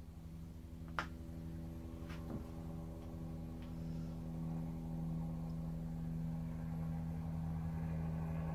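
Steady mains-type electrical hum from the shop's machinery, with two light metallic clicks a second or so apart as a dial height gauge's scriber is set against the tip of an end mill.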